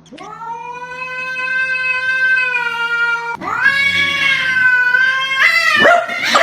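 A cat yowling in two long drawn-out calls, each about three seconds and held at a steady pitch. The second call rises sharply at its end.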